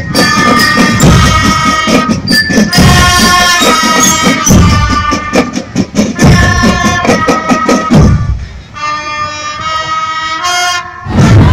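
School marching band playing a march: steady drum strokes under sustained melody notes. The drums drop out about eight seconds in, leaving the melody alone and quieter. Just before the end, crowd shouting cuts in.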